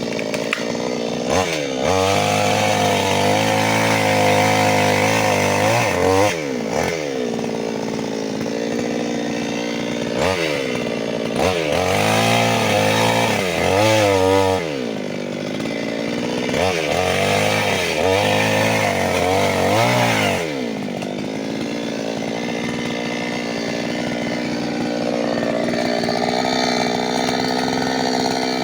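New West 598X two-stroke chainsaw running hard in three long high-revving spells, its pitch dropping and rising again sharply between them. After about twenty seconds it settles to a lower, steadier speed.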